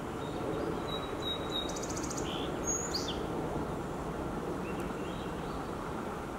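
Steady low background rumble with a few faint, high bird chirps and a brief rapid trill, mostly in the first half.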